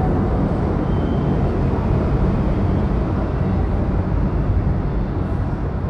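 New York City subway train making a steady, loud, low rumble on a station platform.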